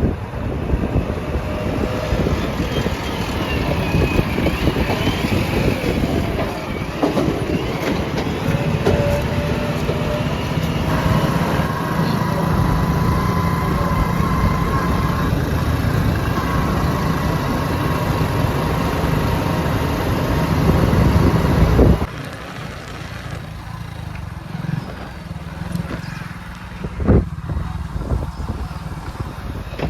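JCB 3DX backhoe loader's diesel engine and hydraulics running hard under load while digging and loading mud, with a steady drone and a whine that rises and falls. About two-thirds of the way through the sound drops off sharply, and a few sharp knocks follow near the end.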